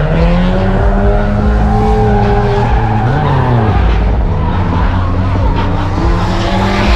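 A car's engine revving hard on the track with tyres squealing as it is driven hard; the engine pitch climbs near the start, drops about three seconds in, and climbs again near the end.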